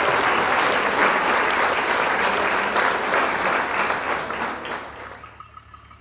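A crowd applauding and cheering, a dense patter of many hands clapping that fades out about five seconds in.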